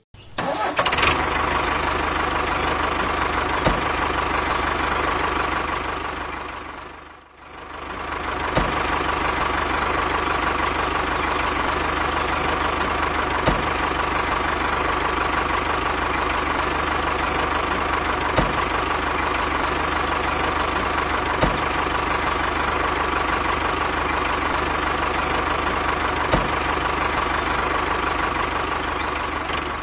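Diesel tractor engine running steadily, an engine sound laid over the toy tractor's driving. It fades away and comes back about seven seconds in.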